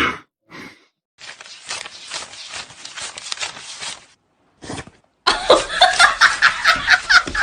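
A person laughing hard in quick repeated bursts, starting about five seconds in, after a few seconds of hissing noise.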